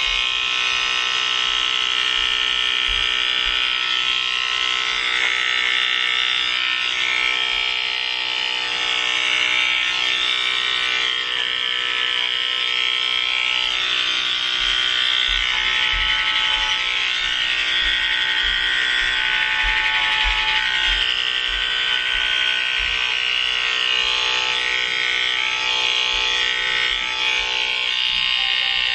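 Electric hair clippers buzzing steadily as they cut off long, grown-out hair.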